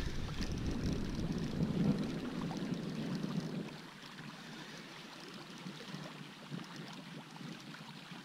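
Wind buffeting the microphone over the wash of shallow surf. The heavy low rumble drops away about four seconds in, leaving a quieter, even hiss of wind and water.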